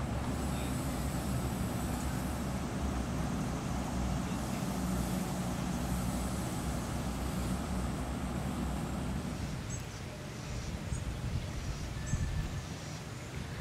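A vehicle engine running steadily with a low rumble, which drops away about nine or ten seconds in. Quieter open-air ambience follows, with a few faint, short high chirps.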